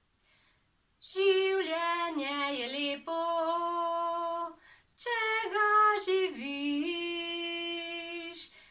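A woman singing alone, unaccompanied, in two phrases with a short breath between them. Each phrase ends on a long held note.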